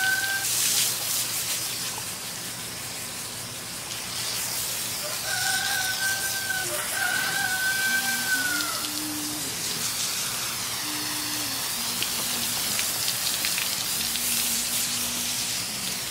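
Rooster crowing: a long crow right at the start, then two more back to back about five to eight seconds in, over a steady hiss of water spraying from a hose.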